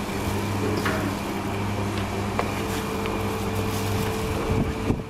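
Steady machine hum, with a higher tone joining about halfway, and a few faint light clicks.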